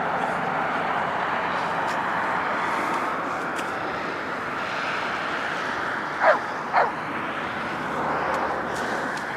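A dog gives two short yelps, each falling in pitch, about half a second apart and about six seconds in, over a steady noisy background.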